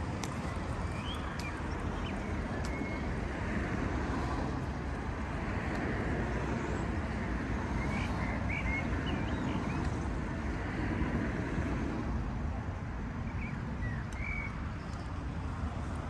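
Urban park ambience: a steady low rumble of distant traffic and wind, with short high bird chirps a few times, about a second in, around the middle and near the end.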